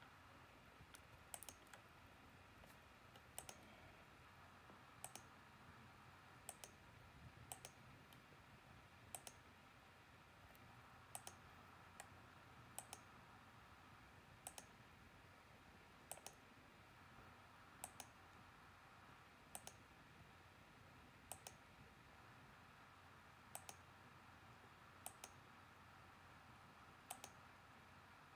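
Faint computer mouse clicks, often two in quick succession, repeating about every one and a half to two seconds over near-silent room tone.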